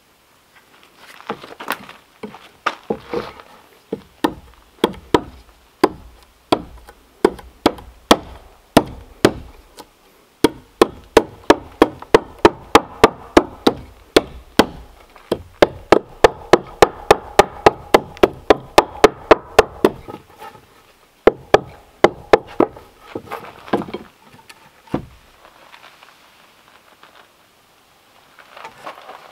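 Repeated hard knocks of a tool striking wood, slow and uneven at first, then a fast even run of about three blows a second with a ringing tone under it, and a few last blows before it stops.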